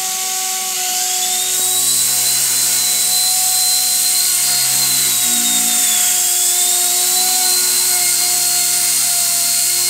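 WLtoys V977 micro RC helicopter's brushless motor and main rotor spinning up in a hand-held test run. It makes a high whine that climbs about a second in, dips briefly near the middle, then holds steady.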